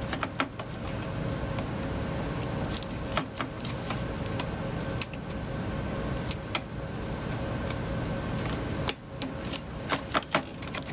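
Clicks and light rattles of oscilloscope parts being handled and released during disassembly, over a steady low rumble that drops away about nine seconds in.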